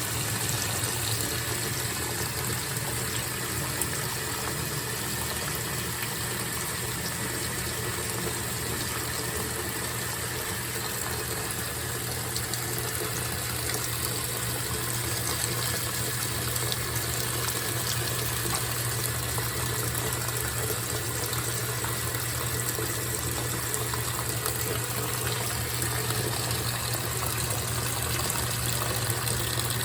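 GE top-load washing machine running with its lid up: a steady rush of water in the tub over a steady low hum.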